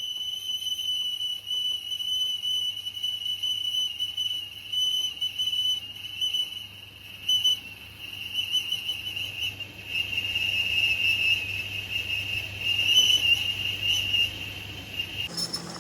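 A continuous high-pitched whistling tone that wavers slightly in level and pitch, stopping abruptly near the end.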